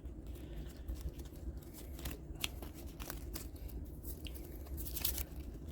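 Stiff plastic trading cards being handled and flipped through by hand: scattered light clicks and soft rustling, busiest about five seconds in.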